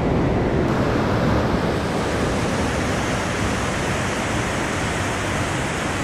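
River rapids rushing: a steady, loud wash of white water.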